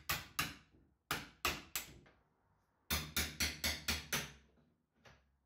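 Hammer blows on an old wood chisel driven into a door frame to cut the metal staples joining it to its sub-frame. Sharp knocks in quick runs of two, three and six, about three a second, with two faint taps near the end.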